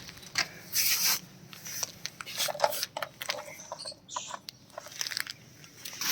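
Irregular light clicks, knocks and rubbing of small plastic toys being handled, with a few louder knocks about a second in and near the end.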